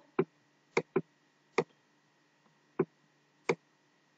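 Computer mouse clicking: six sharp, single clicks at uneven intervals while handwriting is drawn onto an on-screen document with a pen tool.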